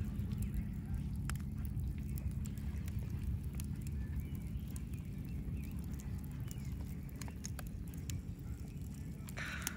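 Wood campfire crackling, with scattered sharp pops and snaps, over a steady low rumble.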